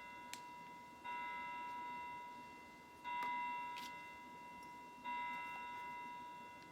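A bell-like chime on one note, struck three times about two seconds apart, each ring dying away slowly. There are a couple of faint clicks as well.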